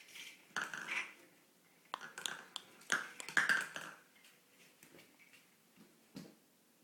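A baby's short clicking and smacking mouth noises, coming in clusters: one about half a second in, another around two seconds, the loudest around three to four seconds, then a few faint clicks.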